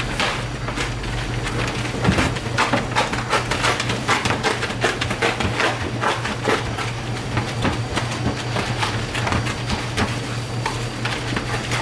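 Quick repeated clattering and scraping of utensils on cookware, about two to three knocks a second, over a steady low machine hum.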